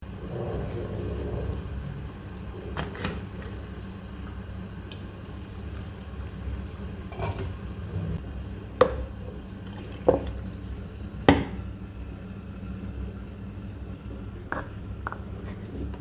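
Utensils and containers being handled: about seven sharp knocks and clinks, the three loudest close together in the middle, over a low steady hum.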